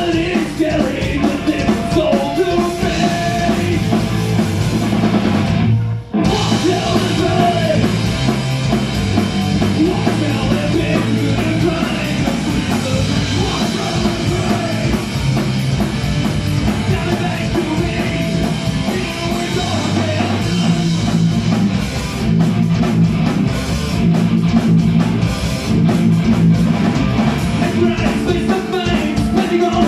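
Rock band playing live: electric guitars, drum kit and vocals. The sound cuts out for an instant about six seconds in.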